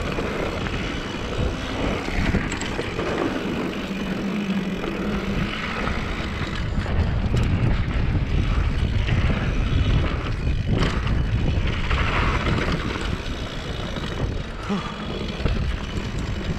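Wind buffeting the microphone and mountain-bike tyres running over a dry dirt trail at speed, a steady rumbling noise that swells in the middle, with a few short knocks and rattles from the bike over bumps.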